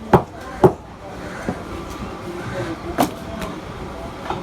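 Chopping blows on a beef leg, a heavy blade striking meat and bone: two sharp strikes close together near the start, then two more about three seconds in.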